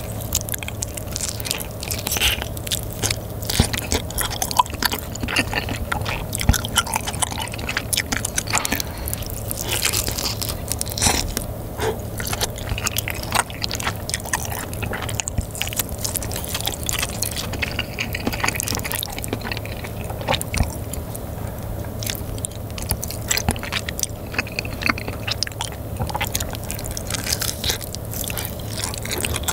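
Close-miked biting and chewing of spicy sous-vide whole chicken, the meat pulled off a drumstick held in tongs: a dense, irregular run of mouth clicks and smacks with no talking.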